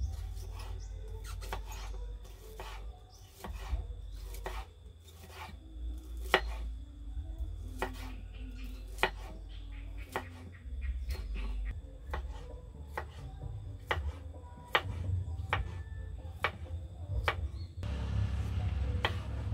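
A kitchen knife chops baby corn on a wooden cutting board, and a carrot near the end. The knocks come sharp and irregular, a few a second, over a low rumble.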